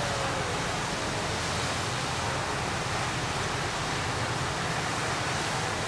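Steady rushing hiss of a tall jet of water gushing up from a street geyser.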